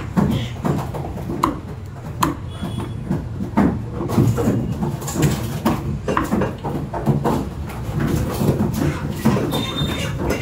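Meat cleaver chopping chicken on a wooden butcher's block: repeated sharp chops at irregular spacing, about one or two a second, over a steady low background noise.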